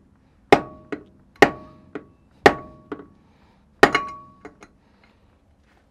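Rubber mallet striking a brass drift held against a free-wheeling hub stud: four solid blows about a second apart, each followed by a lighter bounce and a short metallic ring, stopping a little past halfway. The blows are driving out the cone washers that hold the hub body on.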